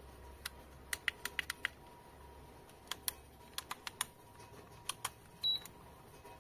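Sharp plastic clicks and taps from a folding drone remote controller being handled, its antennas swung up and clicking into place, in a few quick clusters. A short high-pitched beep about five and a half seconds in.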